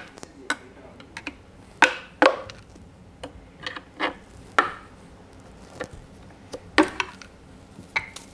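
Irregular sharp metal clinks and knocks, about a dozen, from hand tools and bolts being handled while the rear main seal plate is unbolted from a Honda J30A4 V6 engine block.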